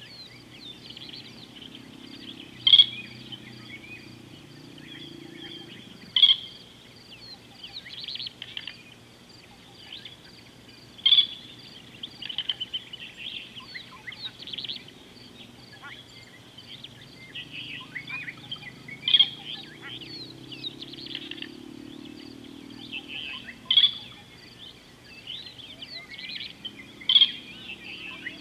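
Birds chirping and calling in the open, with a sharp, loud call repeated six times a few seconds apart over a faint low hum.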